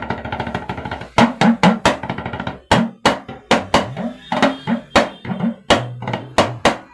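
Yoruba talking drum (dundun) being played with a curved stick: a fast run of sharp strokes whose notes bend up and down in pitch as the tension cords are squeezed, with a few rolls of quick strokes.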